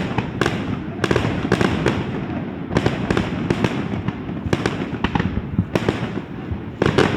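Fireworks display: sharp, irregular bangs of bursting shells, roughly two a second, over a continuous rumble of further bursts.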